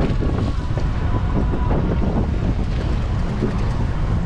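Steady wind rumble buffeting the microphone aboard a fishing boat at sea, with wave and boat noise underneath. A faint thin whine sounds briefly near the start.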